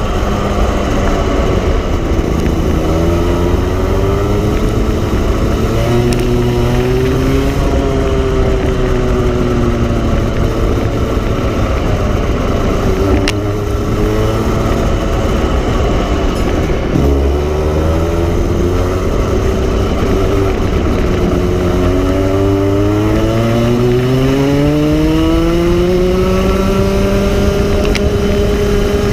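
Go-kart engine running hard on a lap, its pitch dropping off and climbing again several times as the driver lifts and gets back on the throttle, with a deep drop about two-thirds of the way through and a long climb near the end.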